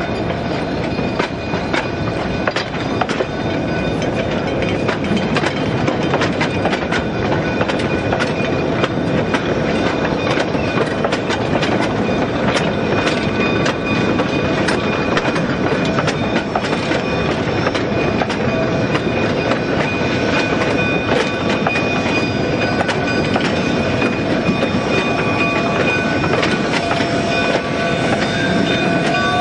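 Narrow-gauge freight cars rolling slowly past on jointed track, a steady rumble broken by frequent clicks and clanks from the wheels and couplers. A thin wheel squeal runs under it and grows clearer near the end.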